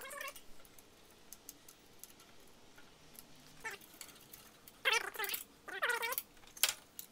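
A cat meowing, a short cry at the start and two longer, bending meows about five and six seconds in. Light clicks of screws and small metal parts being handled run underneath as screws are fitted to the reel mower's side plate.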